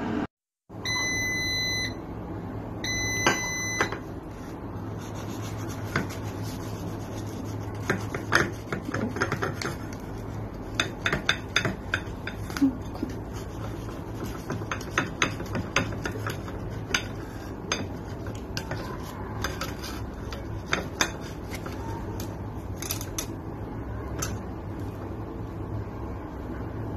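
Two short runs of electronic beeps near the start. Then a table knife scrapes and clicks against a ceramic plate as a crisp-crusted baked potato flatbread is cut and torn apart, over a steady low hum.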